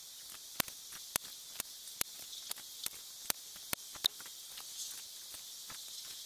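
A quick run of about nine sharp cracks a little under half a second apart, stopping about four seconds in: BSA Superten PCP air rifle pellets striking the paper target on a wooden post.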